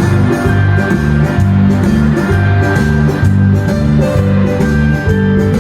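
Instrumental background music with a steady rhythm of repeated chords.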